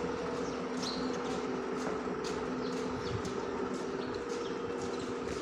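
A steady machine hum with a constant drone, the kind of sound a running engine makes, with birds chirping briefly and repeatedly over it.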